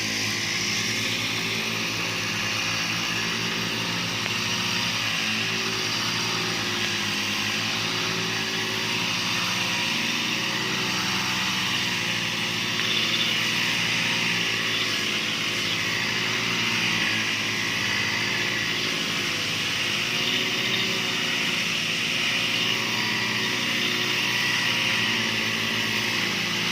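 Petrol grass cutters running steadily at high speed while cutting grass: a continuous engine whine with a hiss of cutting.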